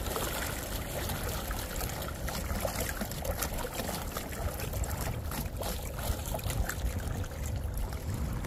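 Water splashing and lapping against a small inflatable electric boat moving through light chop, with wind on the microphone. A steady, even wash of noise.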